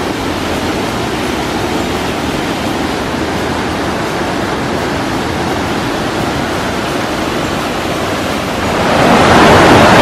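A mountain stream rushing down a rocky cascade: steady white-water noise that grows louder near the end.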